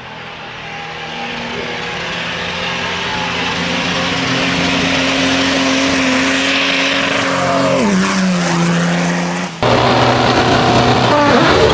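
Hillclimb race car engine running at high, steady revs and growing louder, then its pitch drops sharply about eight seconds in. An abrupt cut brings a second race car engine, louder, revving up and down near the end.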